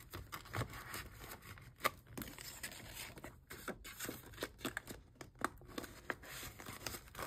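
Paper dollar bills and a savings-challenge sheet in a clear plastic binder pouch being handled: light rustling and crinkling with scattered small clicks.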